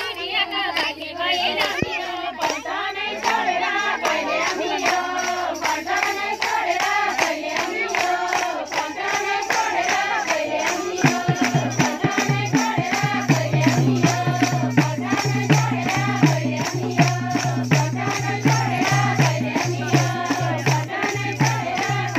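A group of women singing a Nepali Teej folk song in chorus, with clapping and jingles. About halfway in a steady low drum beat joins.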